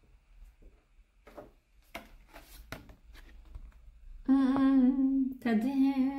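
A woman humming two long held notes at a steady pitch, starting about four seconds in, the second one wavering at its start. Before that, light paper rustling and taps as a paper tier-list sheet is handled.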